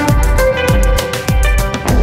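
Background music with a steady drum beat and sustained instrumental notes.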